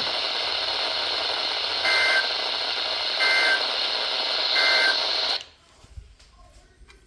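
NOAA Weather Radio EAS header data bursts: three short two-tone warbling bursts about 1.3 seconds apart over a weak, static-filled radio signal, the digital header of a severe thunderstorm warning. The static cuts off suddenly about five and a half seconds in.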